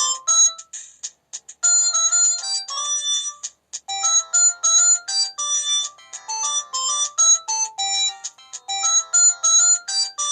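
Preloaded ringtone melodies of a Samsung SGH-C270 mobile phone: short synthesized notes in quick stepping phrases, several sounding at once, with brief pauses between phrases.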